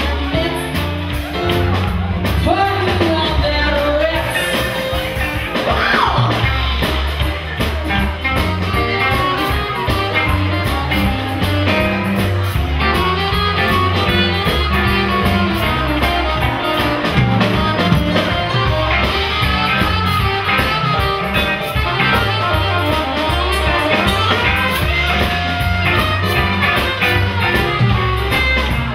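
A live band playing: a woman singing over electric guitar, drums and upright double bass, with a saxophone playing in the later part.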